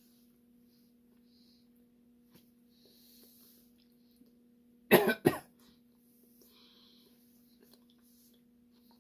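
A man coughs twice in quick succession about five seconds in, while eating; otherwise it is quiet, with a faint steady hum.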